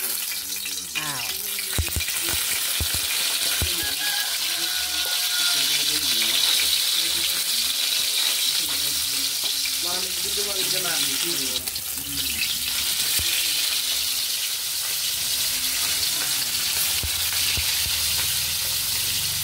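Whole fish frying in hot oil in a steel wok: a steady sizzle as the fish are laid in with tongs, with a few light knocks in the first few seconds.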